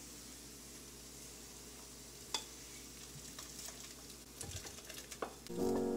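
Faint steady sizzle of a pot of soup simmering, with a single knock about two seconds in and a few light knocks and scrapes near the end as a wooden spatula pushes tofu cubes from a frying pan into the pot. Background music starts just before the end.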